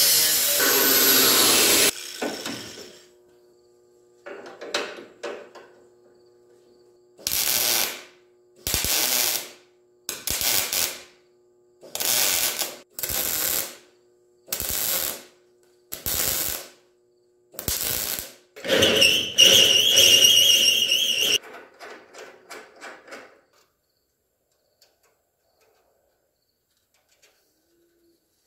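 Angle grinder with a cut-off wheel cutting steel for about two seconds, then winding down. From about seven seconds in, a wire-feed (MIG) welder lays about nine short tack welds, each under a second and roughly one every 1.2 s, to weld in a piece of angle iron; a faint steady hum runs under them. A louder, harsh stretch of about two and a half seconds follows.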